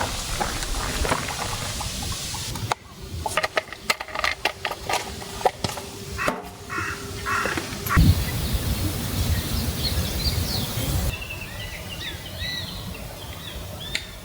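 A stretch of rustling noise, then a run of sharp clicks and knocks from handling something, then small birds chirping in the last few seconds over outdoor background noise.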